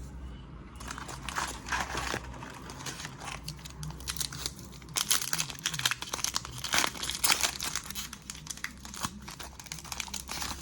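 Foil wrapper of a Pokémon trading-card booster pack crinkling irregularly as it is handled and torn open, with sharp crackles, busiest around the middle.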